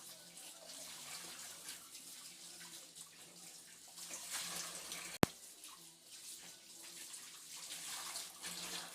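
Water running from a kitchen tap and splashing unevenly in the sink, as things are rinsed. One sharp click about five seconds in.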